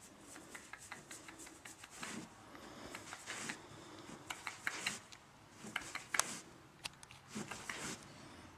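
Faint rustling with scattered soft scrapes and clicks from a Great Dane puppy shifting about on carpet while a hand strokes its fur.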